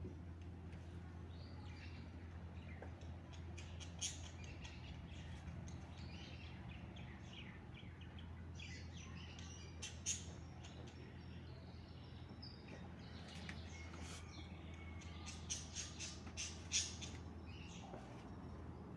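Small birds chirping: scattered short high calls, with a quick run of louder chirps near the end, over a steady low hum.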